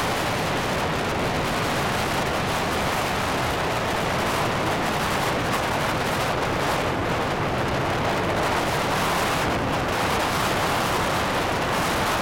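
Storm surf sloshing and breaking against and over a jetty, with storm wind buffeting the microphone: a steady, dense rush with a deep rumble underneath and no let-up.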